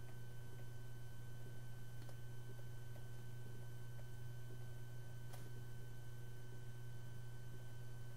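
Low steady hum with a few faint clicks, one about two seconds in and one about five seconds in.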